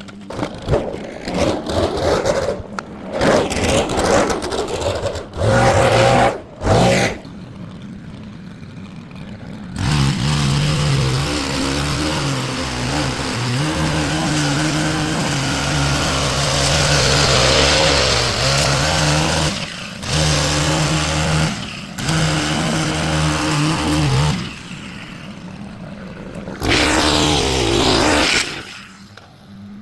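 Small gasoline engine of lawn power equipment running, throttled up and down in spells with short drops in between.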